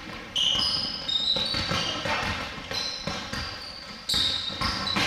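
Basketball being dribbled on a hardwood gym floor, with several short, high sneaker squeaks as players cut and move.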